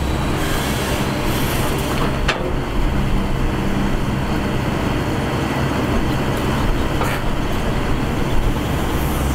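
Shantui Matador ME210LC-1 crawler excavator's diesel engine running steadily under working load as the boom and bucket dig soil out of a pit. Two sharp knocks come through, about two seconds in and about seven seconds in.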